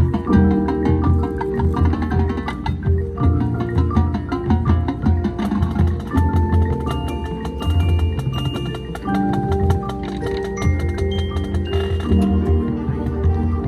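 Marching band music: quick struck marimba- and xylophone-like notes with wood-block clicks over low sustained notes.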